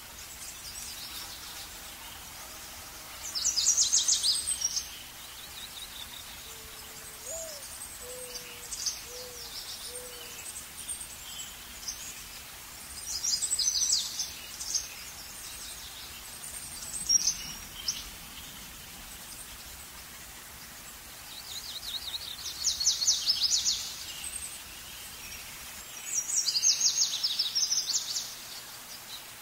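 Birdsong: bursts of rapid high trills every few seconds over a steady hiss of background noise, with four short low calls between about seven and ten seconds in.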